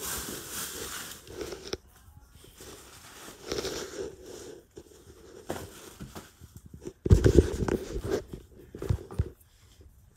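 Irregular rustling and handling noises as things are picked up and moved, with a louder spell of rubbing and bumping about seven seconds in.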